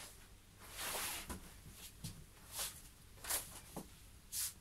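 A handful of short, faint scratching strokes of crayon on paper, irregularly spaced, as colour is scribbled in.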